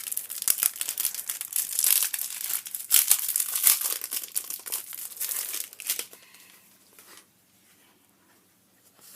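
Packaging crinkling and tearing as it is pulled open by hand, a dense run of crackles that dies away about six seconds in.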